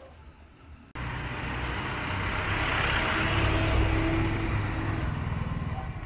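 A motor vehicle driving past on the street, its engine and road noise starting suddenly about a second in, swelling, then fading away.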